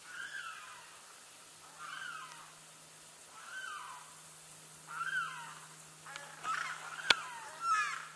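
A bird repeating a short down-slurred call about every second and a half, the calls coming quicker and louder near the end, with one sharp click about seven seconds in.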